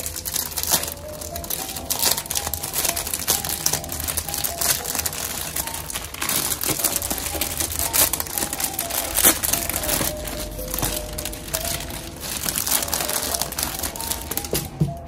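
Clear plastic packaging bag crinkling as it is handled, opened and pulled off a round fabric mouse pad, over soft background music.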